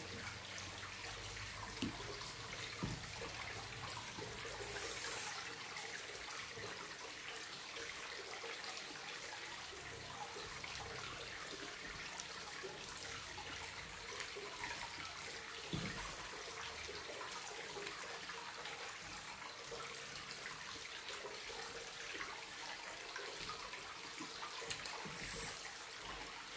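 Steady trickle of running water, with a few soft clicks from eating rice by hand.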